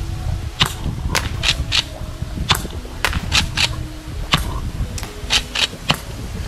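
Golden Eagle 8877RW gas pump-action airsoft shotgun firing in three-BB mode, about every two seconds. Each sharp shot is followed by quick metal clacks as the pump is racked for the next shot.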